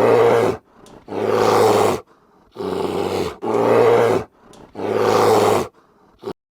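A large animal roaring five times in a row, each roar lasting under a second with short silent gaps between, followed by a brief grunt near the end.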